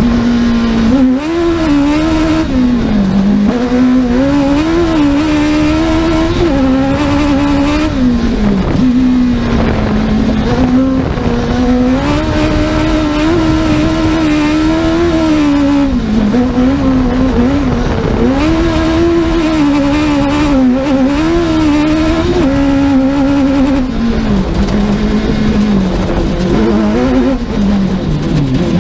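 Two-wheel-drive Suzuki rally car's engine at full effort, its revs climbing and dropping again and again through gear changes and lifts.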